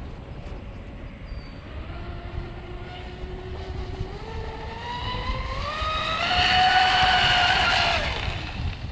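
Twin brushless electric motors of an RC speedboat, the Oxidean Animal 2, whining as the boat speeds up: the pitch rises steadily, is loudest near the end, then drops away quickly. Wind rumbles on the microphone underneath.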